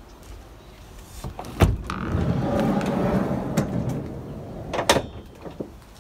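Fiat Ducato van's side sliding door being opened. A sharp click as the handle releases the latch, then the door rolls along its track for about three seconds and stops with a sharp clunk near the end.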